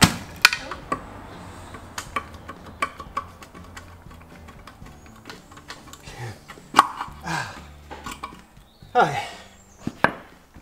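Sharp metal knocks and clicks as a drum brake shoe and its springs are worked loose from the axle's brake backing plate of a 1975 Bedford truck, the loudest knock at the very start.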